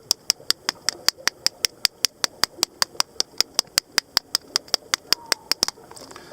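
A small hammer tapping rapidly and evenly on a surprise egg's shell to crack it, about five sharp taps a second, stopping near the end.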